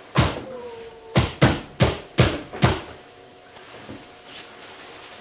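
Pillow blows landing on a person lying on a bed: six soft thumps in quick succession over about two and a half seconds, then they stop.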